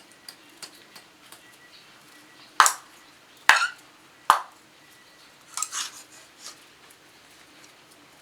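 Metal pieces of a small folding fire box stove being handled: three sharp clanks about a second apart, then a short rattling clatter, with a few light ticks between.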